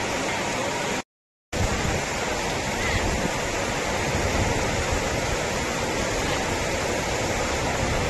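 Heavy rain pouring down onto a flooded paved surface, a steady hiss of downpour. The sound cuts out for half a second about a second in, then comes back fuller with more low rumble.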